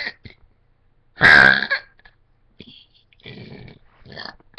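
A girl's really loud burp about a second in, lasting about half a second.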